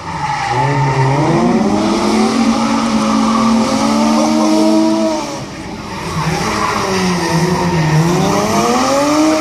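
Drift cars' engines revving hard, their pitch climbing and falling again and again as the cars slide, over the hiss of spinning, skidding tyres. The engines ease off briefly about halfway through, then rev up again.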